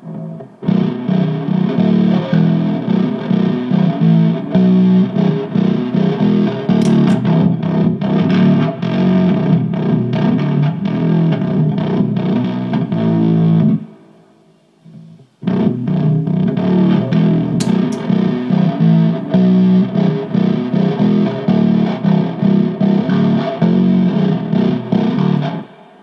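Bass guitar riff played through a Skeedish Muff fuzz pedal with heavy distortion. After a short break about 14 seconds in, the same riff is played through a Woolly Mammoth bass fuzz for comparison.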